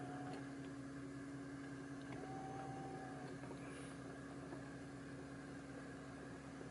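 Faint steady low hum inside a car's cabin, with a brief faint higher tone about two seconds in.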